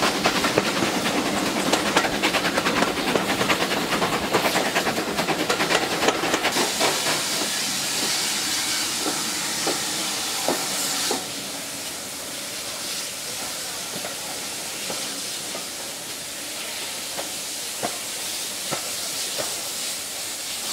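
Heritage steam train heard from inside a carriage: fast wheel clatter over the rails for about six seconds, then a steady loud hiss until about eleven seconds in. After that it turns quieter, with only scattered clicks from the wheels as the train slows past a halt.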